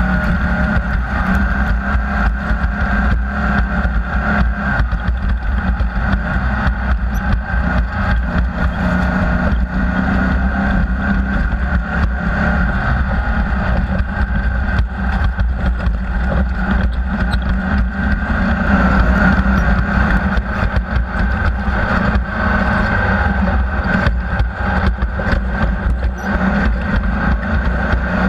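Off-road race vehicle's engine running steadily at speed, with many short knocks and rattles over it.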